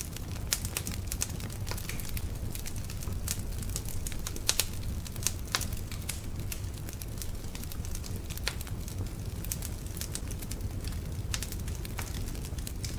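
Fire crackling, with many sharp, irregular pops over a steady low rush.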